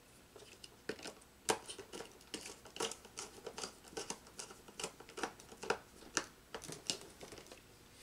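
Hands and a screwdriver working wires into the terminals of a magnetic contactor: an irregular string of small clicks, taps and rustles of wire and plastic, the sharpest about one and a half seconds in.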